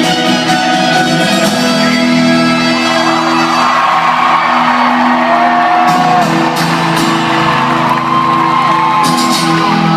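Live folk-rock band holding sustained chords at the close of a song, recorded loud from the audience. A crowd cheers, whoops and whistles over it, swelling from about two seconds in.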